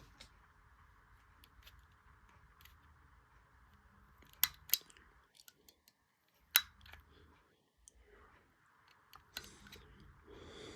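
Scattered sharp small clicks over a faint steady hiss, a garage door remote being handled and set up for programming; the loudest clicks come about four and a half and six and a half seconds in, with a few more near the end.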